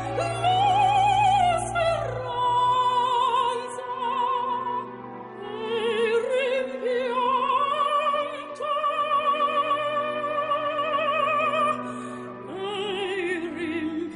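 Operatic singing: long held notes with wide vibrato that glide from one pitch to the next, over steady sustained accompaniment.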